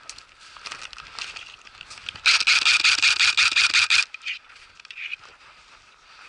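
Airsoft rifle firing one full-auto burst of rapid shots about two seconds in, lasting just under two seconds. It is preceded and followed by quieter clicks and rustling.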